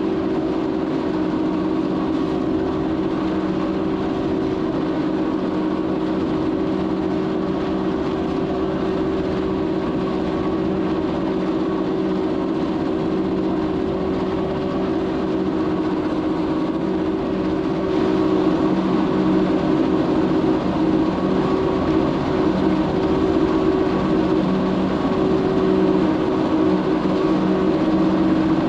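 Swaraj 969 tractor driving a four-row silage cutter through maize, the engine and the spinning cutter making a steady mechanical hum at constant revs. It gets a little louder about 18 seconds in.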